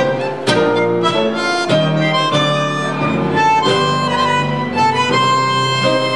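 Live tango music from a trio of bandoneón, classical guitar and violin: the bandoneón holds sustained notes over plucked guitar chords, with the violin underneath.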